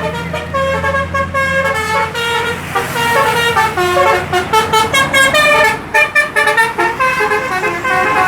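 Bus 'telolet' horn, a set of multi-tone musical air horns, playing a quick tune of short stepped notes that jump up and down in pitch. A low engine hum sits under the first two seconds.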